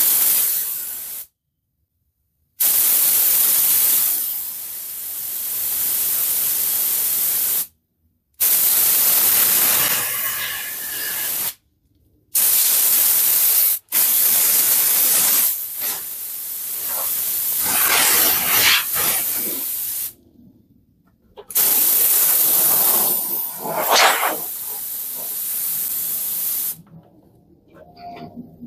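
Compressed air hissing out of an air tool in six bursts of about one to six seconds, each starting and cutting off abruptly. The air is fed through a filter-regulator-lubricator and draws oil into the air line as it flows.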